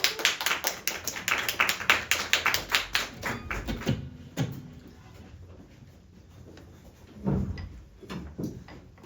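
Small audience applauding, separate hand claps audible, dying away after about four seconds. A few soft low thumps follow near the end.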